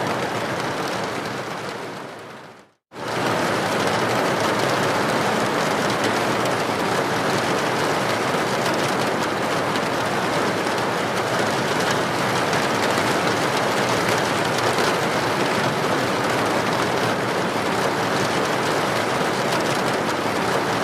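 Steady rain with an even hiss. It fades out about two seconds in, stops for a moment, then comes back abruptly at full level and runs on unchanged, like a loop restarting.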